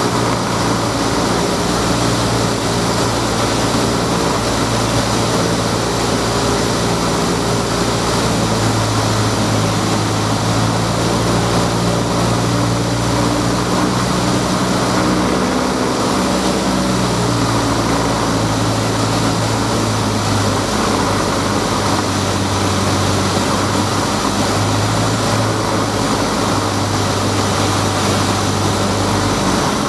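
Light single-engine propeller aircraft's piston engine running, heard from inside the cockpit with a steady rush of airflow over it. The engine note dips and settles at a different pitch about halfway through, on final approach to landing.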